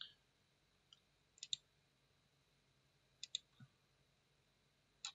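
Faint computer mouse clicks, coming in quick pairs about every one and a half to two seconds, as edges are picked on screen.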